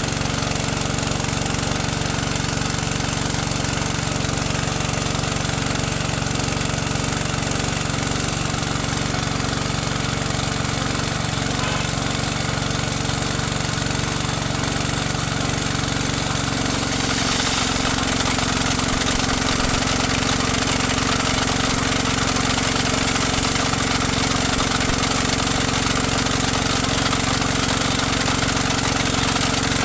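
A small single-cylinder petrol engine driving a spray pump runs steadily. About 17 seconds in its note shifts and a hiss joins it, as the pump's water jet sprays from the nozzle.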